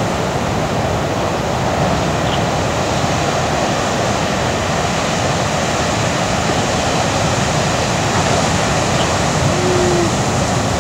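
Heavy ocean surf breaking on a reef: a steady, even rushing noise with no let-up.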